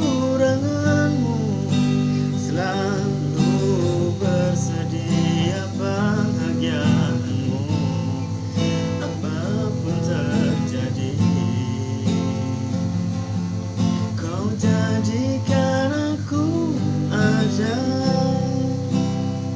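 Acoustic guitar music: steady strummed chords with a wavering melody line over them.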